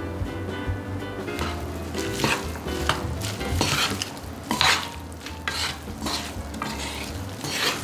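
Chopsticks and wooden spatulas tossing and stirring rice, raw young radish greens and kimchi together in a pan: wet, crackly mixing noises in irregular strokes, busiest from about a second and a half in.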